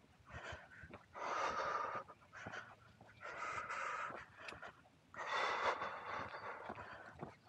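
A walker's heavy breathing close to the microphone, three long airy breaths about two seconds apart, from the exertion of a brisk walk.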